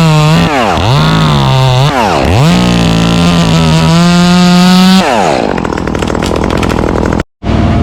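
Gas chainsaw revving up and down several times, then held at high revs for a couple of seconds before dropping back. Near the end a sudden cut leads into a lower, steadier engine hum.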